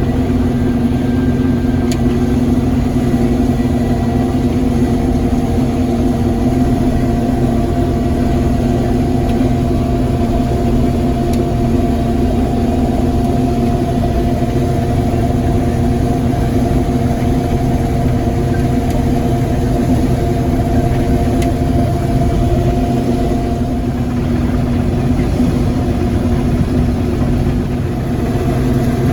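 Combine harvester running steadily at a constant engine speed, an even mechanical drone that holds pitch and level throughout.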